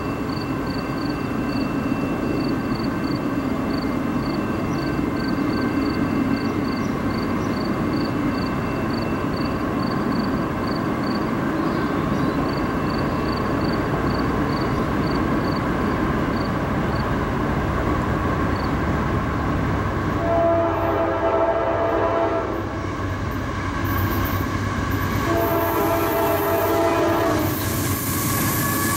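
A CSX freight train led by a GE AC44CW diesel locomotive approaching with a steady rumble. Its air horn sounds two long blasts of about two seconds each, about two-thirds of the way in and again near the end, and a third blast begins just at the close.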